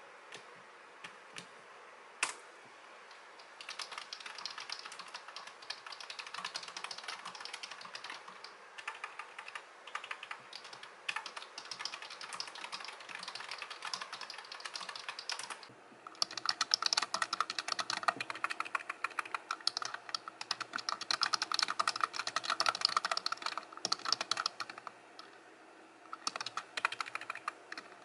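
Fast typing on a slim, low-profile white computer keyboard. A few separate key clicks come first, then continuous typing from about three seconds in. The typing stops briefly about halfway, comes back louder and denser, and pauses again near the end before resuming.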